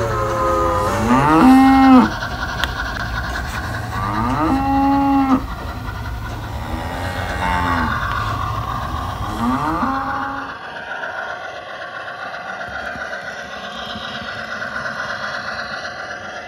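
Cattle mooing four times, each moo rising in pitch, holding and then falling away, the loudest about two seconds in. Under the moos runs a low steady rumble; both stop about ten seconds in, leaving a fainter steady sound.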